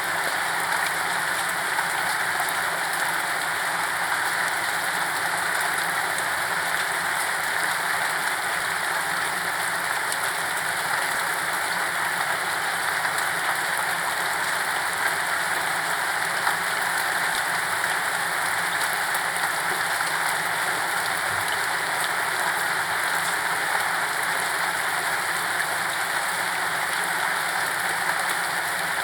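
Steady, soft rain falling without a break, a continuous hiss of drops with no thunder.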